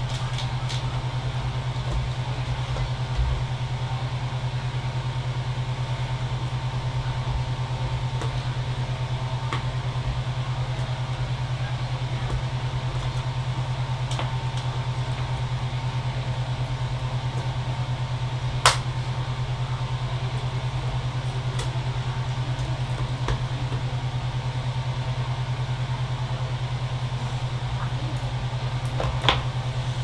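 A steady low hum with faint background noise, broken by two sharp clicks, one about two-thirds of the way in and one near the end.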